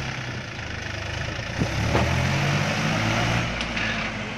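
Mahindra 265 tractor's three-cylinder diesel engine running as it pulls its trolley away, growing louder about one and a half seconds in.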